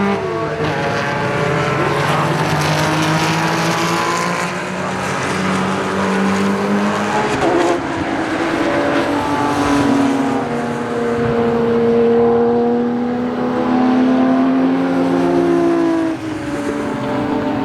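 Historic racing cars running at speed on a circuit, several engines heard at once. Their pitch rises and falls as they accelerate, shift and pass.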